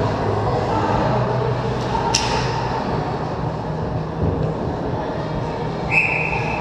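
Steady hum of a large indoor ice rink with faint distant voices. A sharp knock about two seconds in, then a referee's whistle blast starts near the end.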